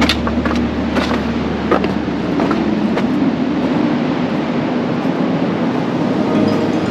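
Strong wind rushing and buffeting over the microphone, steady throughout, with scattered sharp clicks and crunches in the first three seconds.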